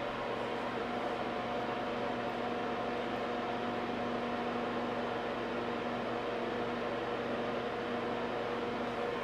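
Steady electrical hum with several held tones over an even hiss, from the running Bertan 210-01R high-voltage power supply and its bench setup, unchanged while the output is turned up toward 200 volts under load.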